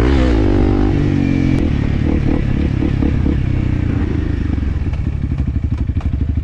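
Motorcycle engine running under throttle with its pitch rising and falling, then dropping to a slow, pulsing low-rev chug about two-thirds of the way through.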